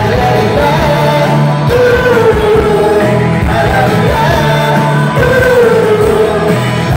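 Rock band playing live, loud: electric guitars, bass and drums under a sung vocal line.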